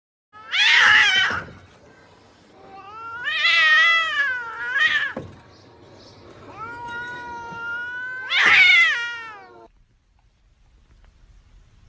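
Domestic cat yowling: three long, drawn-out calls that waver in pitch, the last swelling to a loud cry before it cuts off abruptly.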